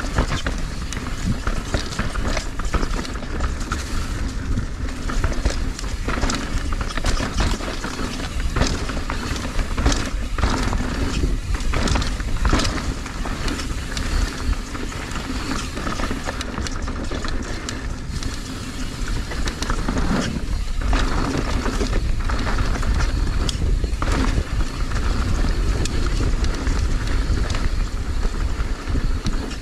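Mountain bike ridden down a rough dirt and rock trail, heard from a rider-mounted camera: steady wind rushing over the microphone and tyres rolling, with frequent clicks, rattles and clunks from the bike over the rough ground.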